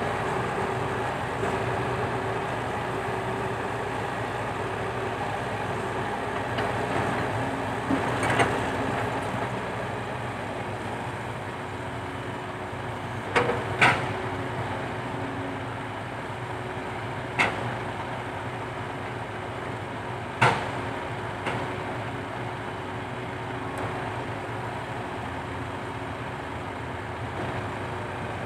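Komatsu PC120-5 hydraulic excavator running steadily, its engine giving a hum with a held tone. About five sharp knocks, the loudest sounds, stand out through the middle, two of them in quick succession.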